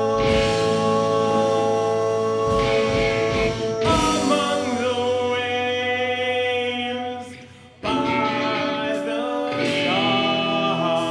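Live band of bassoon, electric guitar and drums playing long, held droning tones with occasional drum and cymbal hits. The sound fades down a little past halfway and the band comes back in all at once about eight seconds in.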